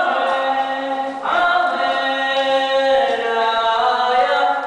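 Choral singing: several voices hold long notes together, shifting pitch every second or so.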